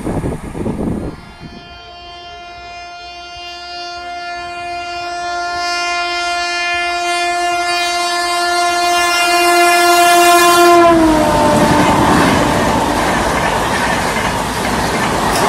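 Shatabdi Express locomotive horn sounding one long, steady blast as the train approaches at full speed, growing louder. Its pitch drops suddenly about eleven seconds in as the locomotive passes, and then the coaches rush past with wheel clatter. In the first second, the noise of another passing train cuts off.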